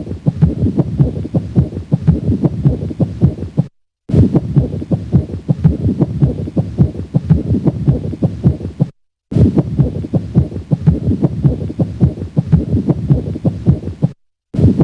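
Stethoscope recording of a pericardial friction rub at the cardiac apex: heart sounds with a dense run of short rubbing strokes, the sign of inflamed pericardial layers typical of pericarditis. The short recording repeats, with a brief silent break about every five seconds.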